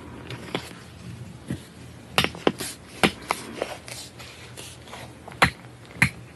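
Close-miked ASMR eating and handling sounds: irregular sharp, crisp clicks and crunches, a cluster of loud ones around the middle and two more near the end.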